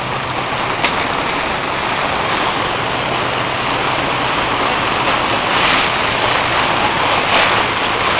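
A car pushing through deep floodwater, with a steady rush and spray of water against the car and a faint engine hum underneath. There is a single sharp click about a second in.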